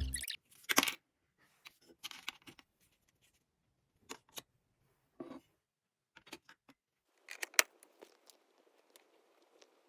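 Sparse small clicks and taps of objects being handled, about a dozen, the loudest about a second in and again at about seven and a half seconds, with a soft hiss coming in at about seven seconds.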